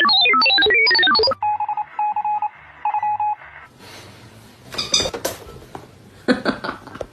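A mobile phone ringtone: a quick melody of stepping notes that ends about a second in, followed by three short beeping tone bursts. Later come two brief clusters of short noisy sounds.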